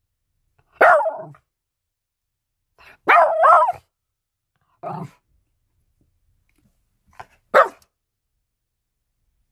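Small dog barking: several short, separate barks a second or two apart, one of them quieter and lower in the middle.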